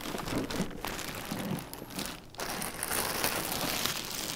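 Thin clear plastic bag rustling and crinkling as it is handled and pulled off a boxed-fresh card printer.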